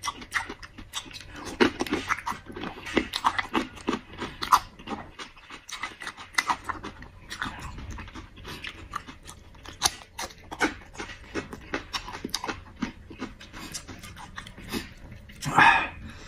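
A man chewing and smacking noisily close to the microphone while eating sauce-dipped quail eggs, small chili peppers and lamb tail fat. A steady run of short wet mouth clicks and smacks, with a louder burst near the end.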